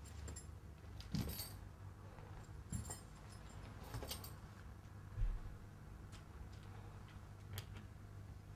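Several short metallic jingles, like small bells or keys shaken, coming about a second apart, with a low thump a little past halfway and a few faint clicks near the end.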